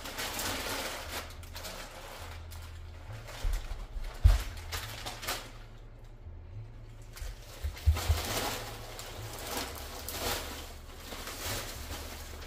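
Paper rustling and crinkling in short spells, with handling noise and a few dull thumps; the loudest thump comes about four seconds in.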